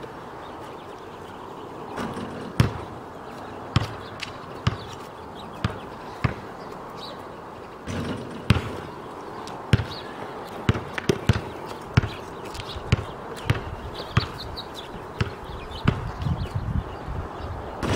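Basketball bouncing on an asphalt street: single sharp bounces about a second apart, coming quicker and closer together in the second half.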